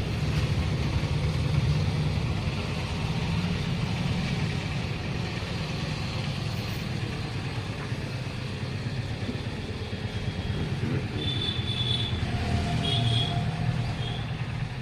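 Steady low mechanical hum of running machinery, with a few brief high-pitched whines near the end.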